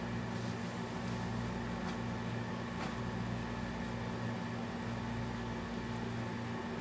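A steady low mechanical hum that swells and fades slowly about every second, over a faint hiss.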